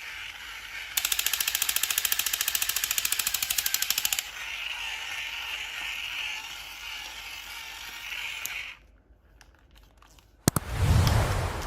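A rapid run of evenly spaced sharp hits, like automatic gunfire, lasting about three seconds. Near the end a loud, sudden, heavy burst.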